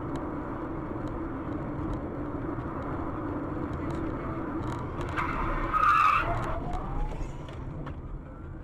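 Car driving on a road, heard from inside the cabin: steady engine and tyre noise. A louder high-pitched noise about a second and a half long comes around five seconds in.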